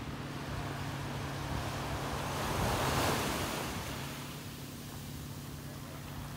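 A rush of sea water and wind that swells to a peak about three seconds in and then eases off, over a steady low motor hum.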